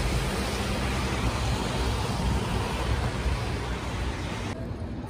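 Steady outdoor city ambience on a rainy day: a continuous hiss of rain and a low rumble of traffic on wet streets. About four and a half seconds in it cuts to a much quieter, duller indoor room tone.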